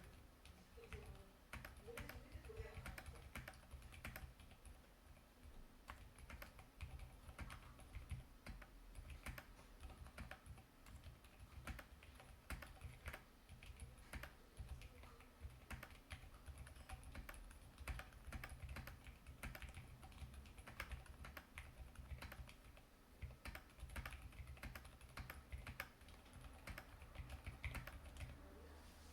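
Continuous fast typing on a KBDfans D84 75% mechanical keyboard with Gateron Silent Red linear switches: soft, muted keystrokes in an irregular stream, with no loud clacks.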